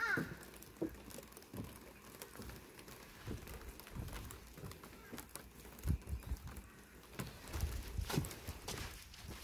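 Irregular footsteps on wet stone paving, mixed with bumps from handling the camera. A crow caws once right at the start.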